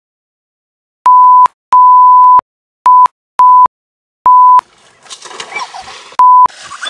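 A series of loud electronic beeps, one steady tone at the same pitch: five of uneven length (two long, then shorter ones) over dead silence, and a sixth about six seconds in. Faint outdoor background noise comes in about five seconds in, under the last beep.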